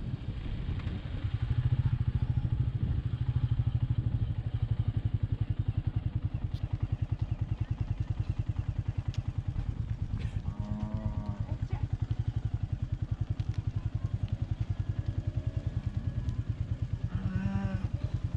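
Royal Enfield Meteor 350's single-cylinder engine running under way at a steady cruise, its exhaust beating in an even rapid pulse, picking up a little about a second and a half in. Two brief pitched sounds cut through, one about ten seconds in and one near the end.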